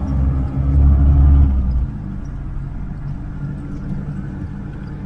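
Vehicle rumble, a car or jeep running: a heavy low rumble that eases off about two seconds in to a steadier, quieter hum.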